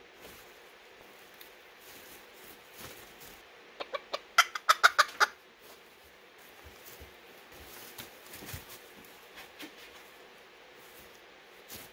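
Serama bantam rooster giving a quick run of short, loud clucks, about eight in a second and a half, about four seconds in.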